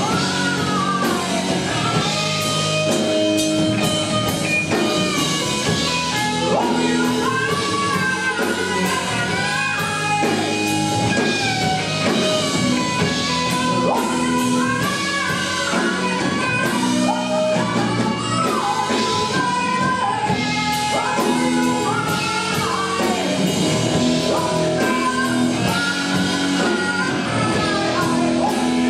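A rock band playing live: a man singing into a microphone over electric guitars and a drum kit.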